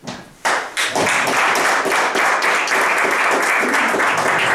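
Audience applauding, a few scattered claps swelling into dense, steady applause within the first second.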